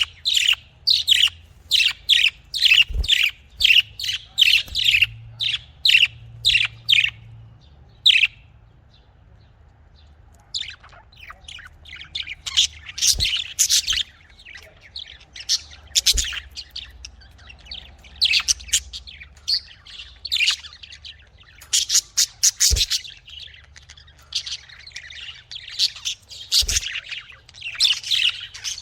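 Pet budgerigars chirping and chattering: a quick run of short sharp calls, a pause of about two seconds, then denser chattering with a few squawks.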